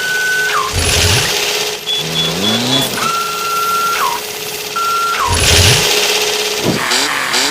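Vehicle engine sound effects, revving with a rising pitch about two seconds in, layered with repeated high steady tones that fall away at their ends.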